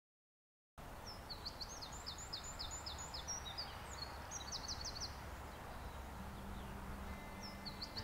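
Yellowhammer singing its song of fast repeated high notes over steady outdoor background noise, once about a second in and again near the end.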